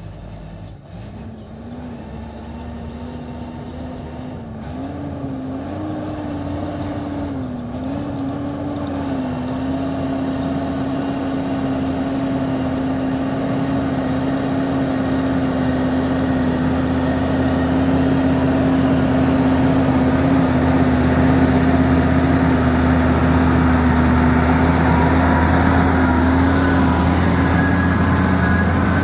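Diesel engine of a logging truck loaded with huge logs, running with a steady note that wavers a little in the first several seconds, growing steadily louder.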